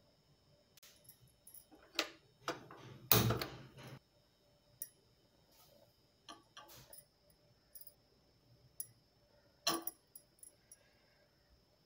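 Scattered clinks, scrapes and knocks of a metal spoon working ground masala paste out of a stainless-steel mixer-grinder jar, the loudest about three seconds in. Later, a few lighter clicks of a spoon against a nonstick frying pan as ghee is spooned in.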